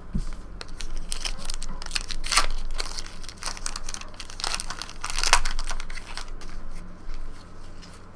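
Trading-card pack wrapper crinkling and tearing as a pack is opened and handled, with louder rips about two and a half and five seconds in.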